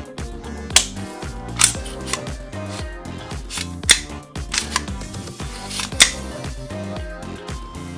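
Background music with a steady beat, cut through by about five sharp gunshots fired at irregular intervals.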